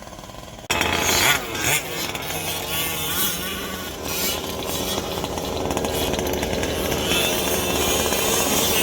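Small two-stroke gasoline engine of a 1/5-scale RC car running at a high buzz. It cuts in suddenly near the start, rises and falls in pitch briefly, then runs steadily.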